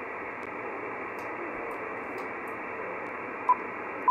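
Icom IC-9700 receiver audio on 70 cm SSB with the external preamp switched off: a steady hiss of receiver noise, with no satellite signal standing out of it. Two short beeps from the radio's touchscreen come near the end, about half a second apart.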